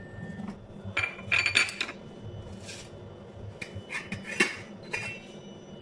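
Metal pans and utensils clinking and clattering in several short bursts, loudest about a second and a half in and again just past four seconds.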